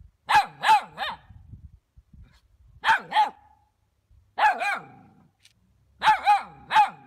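A dog barking in quick groups of two or three, about ten barks in all, with short pauses between the groups.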